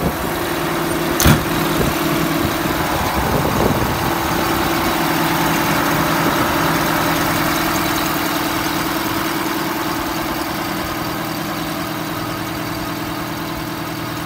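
Heavy diesel engine of an Oshkosh M1070 HET 8x8 tractor idling steadily, with one sharp knock about a second in.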